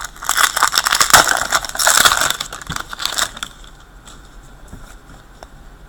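Crinkling and crackling of a foil trading-card pack wrapper being handled and torn open, dense for about three and a half seconds, then only a few faint ticks.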